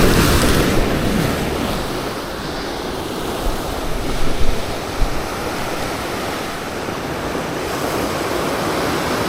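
Ocean waves washing over a rocky shore, a steady rushing surf with wind buffeting the microphone, and a couple of short knocks about halfway through.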